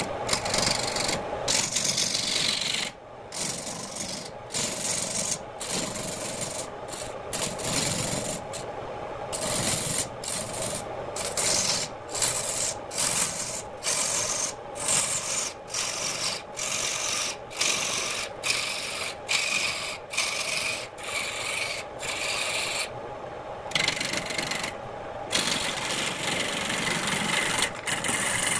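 Turning tool cutting into a spinning redwood blank on a wood lathe: a harsh scraping hiss of wood being cut, over the steady hum of the running lathe. The cut breaks off for a moment and restarts about once a second as the tool comes off the wood and goes back on, then runs unbroken near the end.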